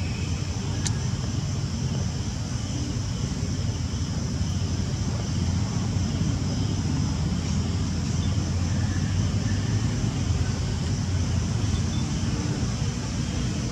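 Steady low outdoor rumble with a faint, steady high-pitched hum above it, and one faint click about a second in.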